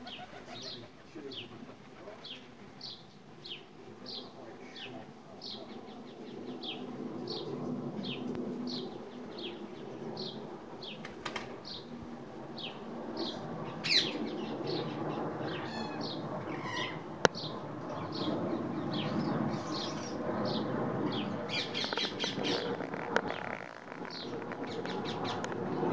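A bird chirping steadily, about one short high chirp every two-thirds of a second, over the fluttering and wing flaps of ring-necked parakeets and pigeons at hanging seed feeders. A few sharp knocks and, near the end, a quick flurry of chirps.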